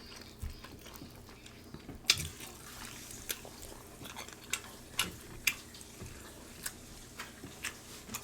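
Close-up wet eating sounds from a seafood boil: a series of sharp, short smacks and clicks, several seconds apart at first, then every half second or so.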